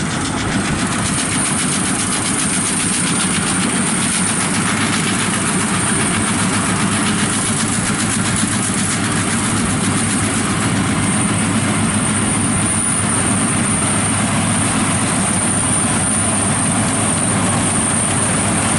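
World rice combine harvesters running steadily while harvesting: the diesel engine and the threshing and cutting machinery make a continuous mechanical rattle and drone, with a thin high whine that becomes clearer about halfway through.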